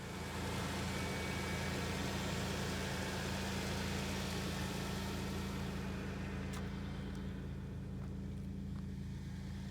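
Third-generation Toyota 4Runner's engine idling steadily, with a couple of faint clicks about two thirds of the way through.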